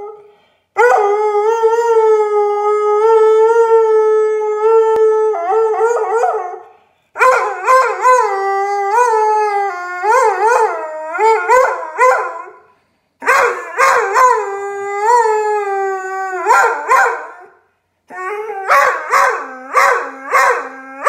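A dog howling: first one long, steady howl of about five seconds, then three bouts of howls that waver up and down in pitch, with short breaks between them. The last bout is a run of shorter, choppier howls.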